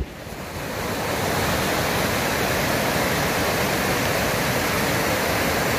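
Steady rush of flowing water, fading in over about the first second.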